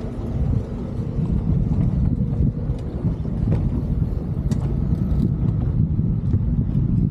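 Wind buffeting the microphone on an open boat at sea: an uneven low rumble, with a few faint clicks about halfway through.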